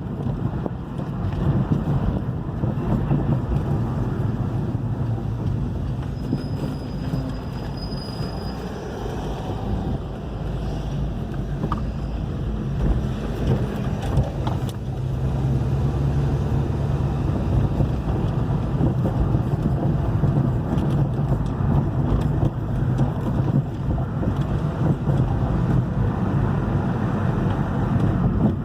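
2011 Hyundai i30 driving over uneven pavement: road and running noise with repeated knocks from the front suspension, the fault the car was brought in for.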